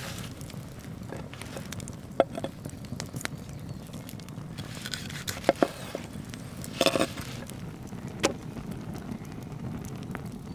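A sandwich of toasted bread being handled and pressed on a cast-iron griddle, with a few sharp clicks and taps, the loudest about two seconds in and a short cluster a little past the middle. Underneath runs the low steady rush of an open wood fire.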